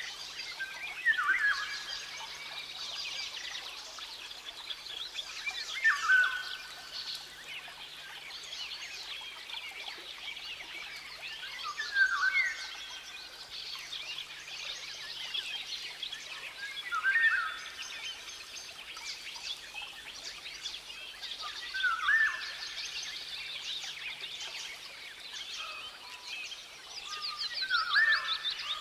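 A bird repeating the same short call about every five seconds, six times, each call the loudest thing heard, over a continuous high chirping chorus.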